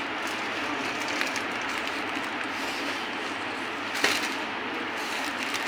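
A sharp glass snap about four seconds in as a glass ampule's neck is broken off using a syringe, with a fainter tick about a second in. A steady background hiss runs underneath.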